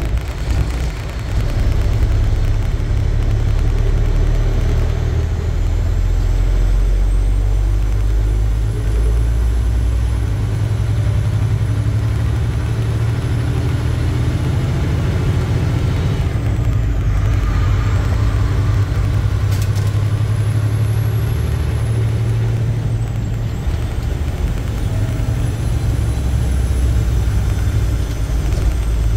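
Inside a semi-truck cab on the move: steady low drone of the diesel engine and road noise, with a faint high whistle that rises and falls three times.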